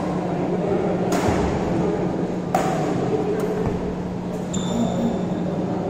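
Badminton rackets striking the shuttlecock in a doubles rally: four sharp hits about a second apart, over a steady low hum. A brief high squeak follows the last hit.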